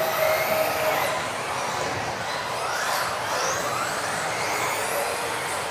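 Several electric RC off-road buggies racing, their motors whining and rising and falling in pitch as they accelerate and brake.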